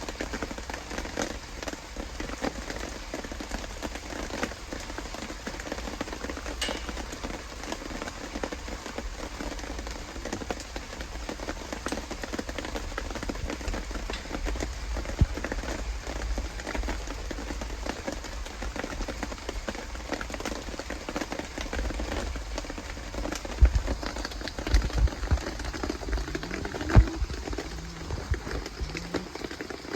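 Steady rain falling and pattering on surfaces, with a few sharp low thumps a few seconds before the end.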